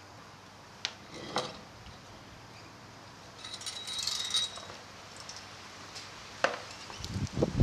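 Metal parts and tools being handled: a couple of separate clicks, then a short cluster of metallic clinking and jingling about halfway through, with louder handling noise near the end.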